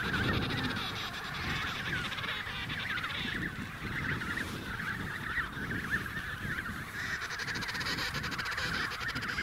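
Emperor penguin colony calling: many short, wavering calls overlapping in a continuous chorus, over a low rumble.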